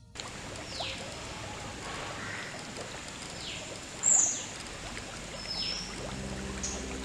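Water running and splashing steadily in a tarpaulin-lined fish pond, with short high falling chirps about every two seconds and a sharper high chirp about four seconds in. Background music comes in near the end.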